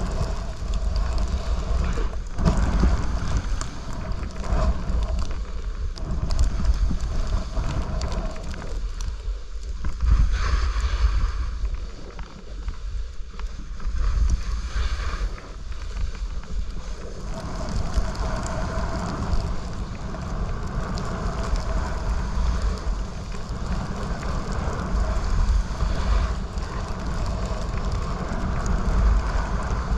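Wind buffeting the microphone of a body-worn camera during a snowboard descent, with the board sliding and scraping over the snow in swells that come and go through the turns.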